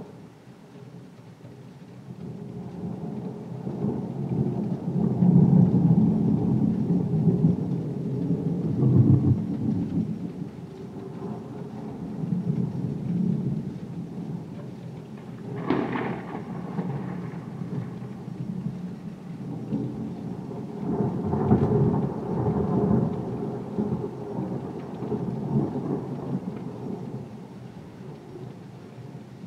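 Thunder rolling in long low rumbles over steady heavy rain, with a sharp crack about halfway through and a second swell of rumbling soon after.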